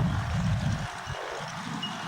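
Aircraft engine noise, with a heavy low rumble through the first second that eases off after it.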